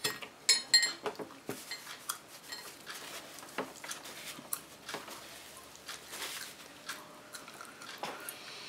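A metal ice cream scoop clinks against an ice cream pint lid a few times in the first second, ringing briefly. After that come faint clicks and soft rustling of a paper napkin and of bites into a toasted waffle ice cream sandwich.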